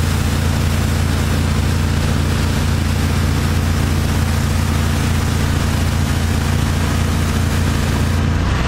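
Hydro Tek hot water pressure washer running under load, its 27 hp Kohler engine giving a steady low drone over a broad hiss. The engine note shifts near the end.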